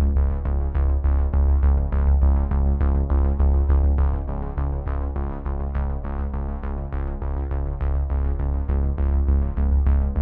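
Background music: quick, evenly repeating synthesizer notes over a steady deep bass.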